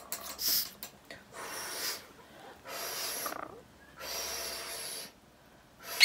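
A lorikeet giving a series of four harsh, hissing rasps, each lasting under a second.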